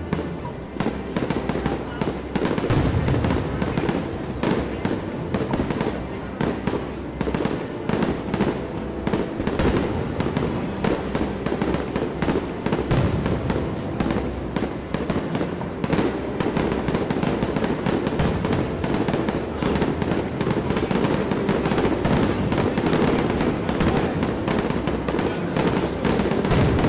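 Aerial fireworks launching and bursting in quick succession: a dense string of bangs and crackles with no pause between them.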